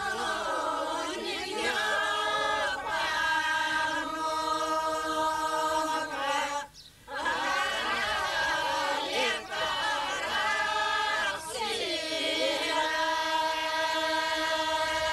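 Group of village women singing a traditional Greek folk song unaccompanied, in long held notes phrase after phrase, with a short pause for breath about seven seconds in.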